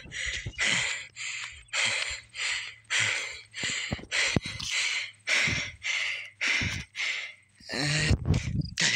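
A person breathing hard after running, gasping in and out about twice a second.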